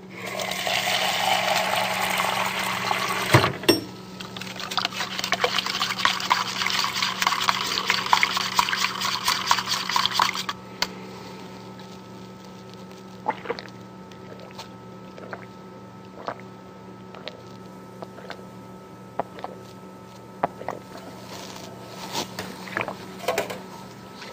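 Water running hard for about ten seconds, then cut off suddenly, followed by a quiet stretch with scattered clicks and knocks.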